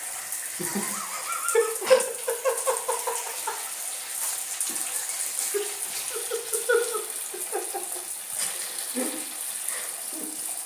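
Shower water running with a steady hiss in a small tiled cubicle, while a ferret makes runs of quick clucking chuckles (dooking) in short bursts.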